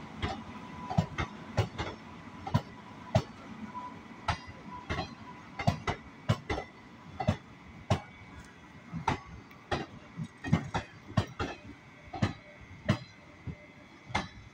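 Passenger train coaches rolling slowly past a platform, their wheels clicking over the rail joints about twice a second, often in quick pairs, over a low rumble.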